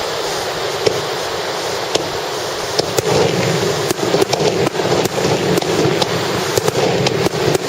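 Fireworks star mine barrage heard from a distance: a few sharp cracks over a steady rushing background, then a rapid, dense run of bursts from about three seconds in.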